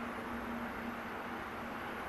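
Grey domestic cat purring steadily while being stroked on the head.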